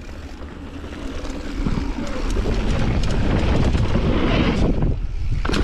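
Mountain bike descending a dirt trail: wind rushing over the microphone and tyres rumbling over the ground, growing louder as the bike picks up speed about a second and a half in, with scattered rattles from the bike and a sharp clatter near the end.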